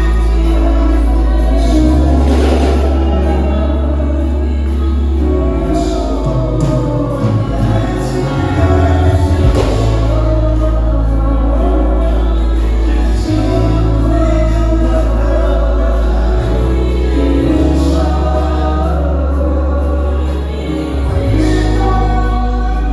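Live gospel worship music: a band with drums, electric guitar and held bass notes backs several singers in a choir-like blend.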